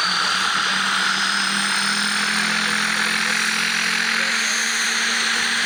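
Turbomeca Astazou turboshaft of an SA.318C Alouette II helicopter running on the ground: a high turbine whine that rises slowly in pitch over a steady rushing hiss, with a lower hum that fades out about four seconds in.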